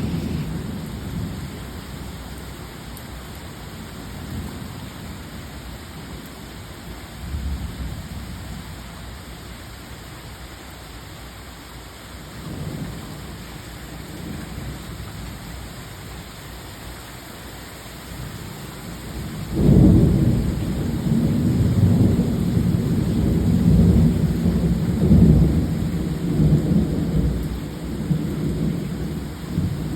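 Heavy rain falling steadily in a thunderstorm, with low rolls of thunder. A few soft rumbles come in the first half, then a loud thunderclap breaks about twenty seconds in and keeps rumbling.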